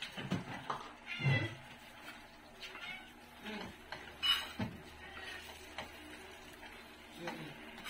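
A cat meowing several times in short pitched calls, the loudest about four seconds in.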